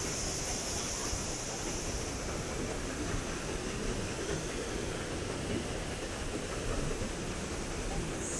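Sternwheeler paddlewheel churning and splashing through river water: a steady rushing wash with a constant hiss above it.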